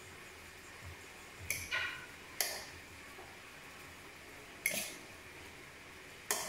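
Utensils knocking against a plastic mixing bowl while minced beef is stirred: a handful of sharp, irregular clacks one to two seconds apart.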